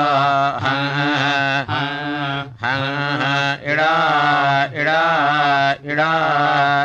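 Samaveda sama gana chanting in the Kauthuma tradition: a voice holds drawn-out, wavering notes in short melodic phrases, with brief breaks between them about once a second.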